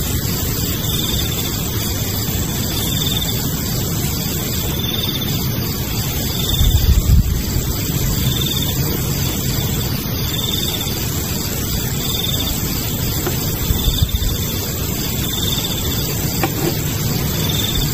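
Night insects chirping in short, regular high-pitched pulses about once every second or two, over a steady low rumble, with two brief low buffets about seven and fourteen seconds in.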